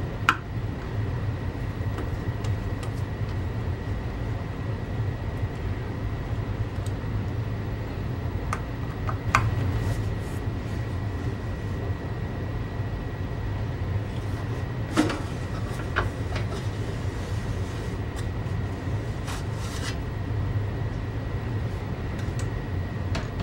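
A CD player's case being handled: a few scattered clicks and knocks as the last Torx screw is taken out and the cover is lifted off the chassis. Under them runs a steady low hum with a faint, steady high whine.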